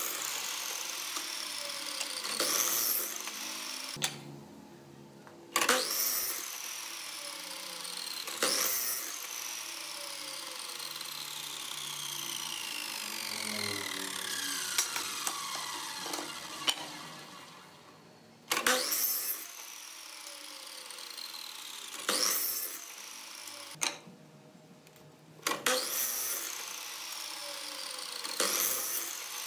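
Electric compound miter saw blade repeatedly spinning up, cutting through short pieces of board, and coasting down with a long falling whine. The motor starts about seven times.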